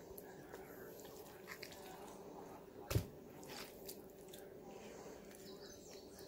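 Soft, wet handling of ground beef filling and cooked cabbage leaves as cabbage rolls are shaped by hand, with one sharp knock about three seconds in. A faint steady hum runs underneath.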